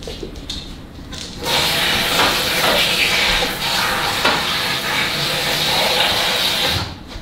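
Kitchen faucet running water into a pot, rinsing collard greens. The water comes on about a second and a half in as a steady rush and shuts off shortly before the end.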